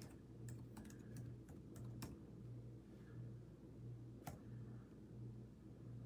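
Typing on a keyboard: a few scattered keystrokes in the first two seconds and one more about four seconds in, over a faint low pulsing hum.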